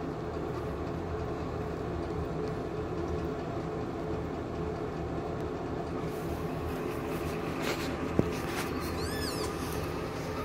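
A cat purring, a steady low rumble from the mother cat as her two-week-old kittens nurse. About nine seconds in, a kitten gives one short, high squeak that rises and falls, and a small click comes just before it.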